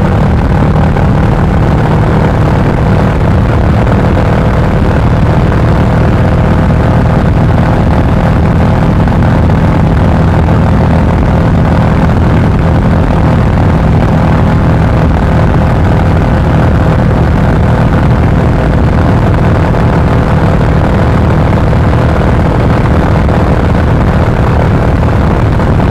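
Royal Enfield Classic 350 (BS6) single-cylinder engine and exhaust running steadily at highway cruising speed, throttle held constant.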